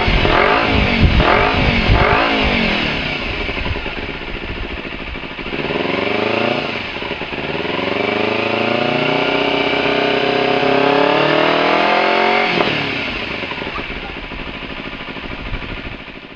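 2008 Kawasaki Ninja 250R's parallel-twin engine through a Hindle slip-on exhaust, revved on the stand: a few quick throttle blips, then a slower climb in revs held high for several seconds. About twelve and a half seconds in the revs drop sharply back toward idle.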